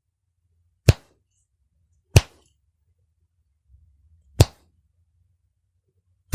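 Finger snaps: three single sharp snaps about one to two seconds apart, with another just as it ends.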